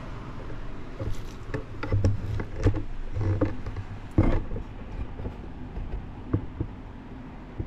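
A gloved hand wipes old grease off a Kobra 3 3D printer's Z-axis with a shop towel. There is irregular rubbing and handling noise, with a knock about four seconds in as the loudest moment, all over a steady low hum.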